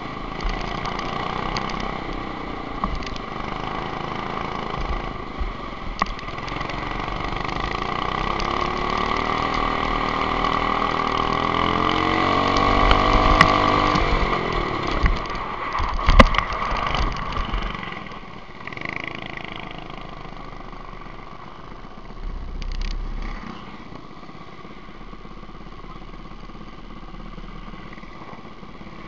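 Go-kart engine heard from an onboard camera, its pitch climbing steadily as the kart accelerates, then dropping sharply about halfway through. A loud knock follows a couple of seconds later, and the engine sound then falls to a lower, quieter level.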